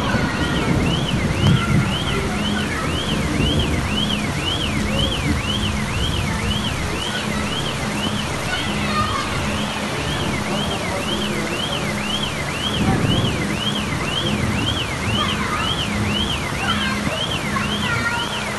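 A car alarm sounding: a tone sweeping up and down about one and a half times a second, with a lower tone pulsing on and off, over the steady rush of floodwater and rain.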